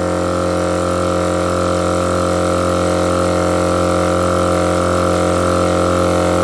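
Twin-cylinder electric air compressor running steadily under load, pumping air into four tyres, one cylinder fitted with a cooling fan. The drone holds an even pitch throughout.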